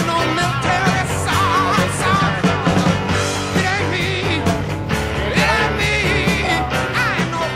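Rock song playing as a soundtrack, with a singing voice over a steady bass line.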